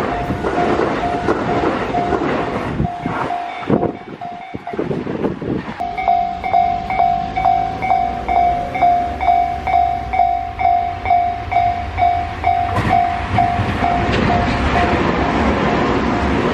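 Railway level crossing warning bell ringing in a steady beat of about two strokes a second, over the running noise of a passing Tobu Isesaki Line train. Near the end the bell fades out while the train noise grows.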